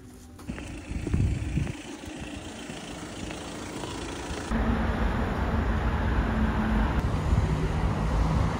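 City street noise with road traffic: a steady hiss over a low rumble, growing louder about halfway through.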